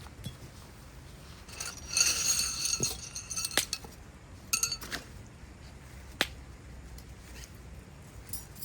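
Clinks and clicks of camping gear being handled. A short ringing clink of metal or glass comes about two seconds in and another around the middle, with a few single sharp clicks in between.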